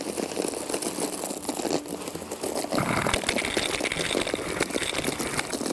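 Gravel and soil being poured into a drain trench and landing on and around the microphone: a dense crackling rattle of many small stones and clods, heavier from about three seconds in.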